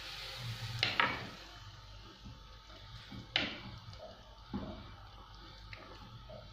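Wooden spoon stirring minced meat in tomato sauce in a frying pan, knocking and scraping against the pan several times. Under it is a faint sizzle of the sauce simmering with freshly added water.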